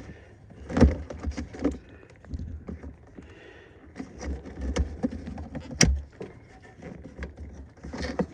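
Scattered clicks, taps and rustling of hands handling a truck air line and its fittings, with a sharper knock about a second in and another near six seconds.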